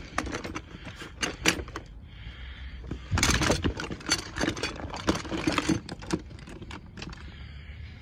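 Metal hand tools clinking and knocking together as a hand rummages through an open tote tool bag: a run of sharp clicks and rattles, busiest in the middle.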